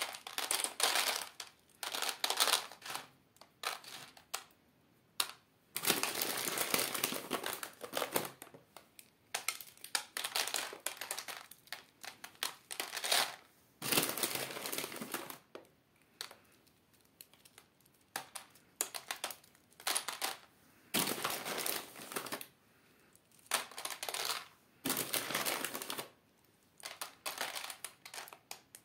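Dry, hard grain pellets being snapped by hand and rattling into a plastic tray, with a kraft paper bag crinkling. The sound comes in irregular bursts of crackling and rattling, separated by short quiet gaps.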